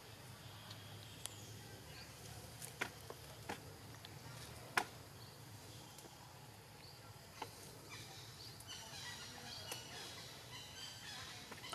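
Faint forest ambience: a low steady hum with a few sharp clicks, the loudest about five seconds in, and faint high chirping that fills in over the last few seconds.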